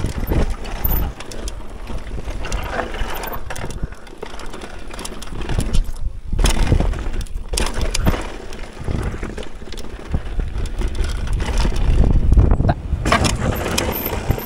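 Mountain bike descending a dirt trail at speed: a continuous rush of noise with frequent knocks and rattles from the bike over rough ground.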